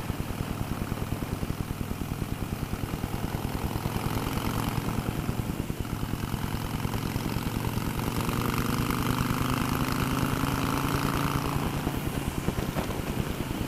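Harley-Davidson Iron 883 Sportster's air-cooled V-twin running steadily while riding along at road speed, its exhaust pulsing evenly.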